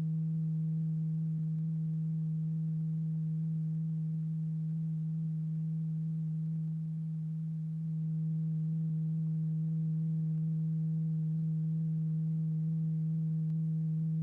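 Steady, pure low tone at about 160 Hz with fainter overtones above it, from the oscillator and loudspeaker that vibrate a powder-strewn diaphragm in a cymatics experiment. It dips slightly in loudness about seven seconds in.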